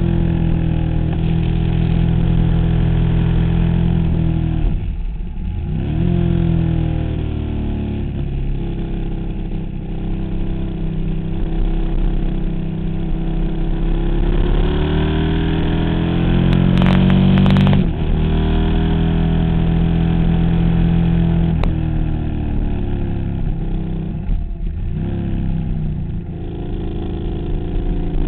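KTM 990 Super Duke's V-twin engine under way on a twisting road, its revs rising and falling through the curves. Twice the note drops away sharply and then climbs again, once about a fifth of the way in and once near the end.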